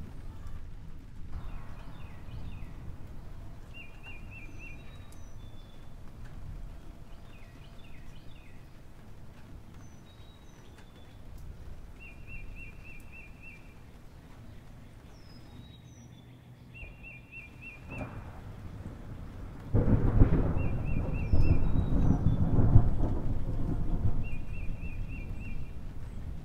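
Steady low rumbling noise with a short, high chirping trill that recurs every few seconds. About twenty seconds in, the rumble swells much louder for roughly five seconds, then settles back.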